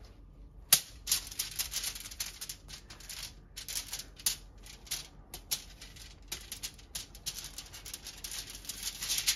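Aluminium foil crinkling and crackling under gloved hands rubbing margarine over it, in rapid irregular crackles, with a sharp click about a second in.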